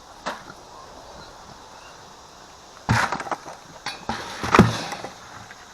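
A few hard knocks and clatters, the loudest about three seconds in and about four and a half seconds in, the last with a dull thump under it.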